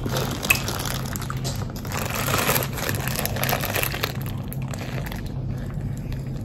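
Plastic drink bag crinkling in the hands, with sips and slurps through a straw of a thick avocado and young-coconut drink.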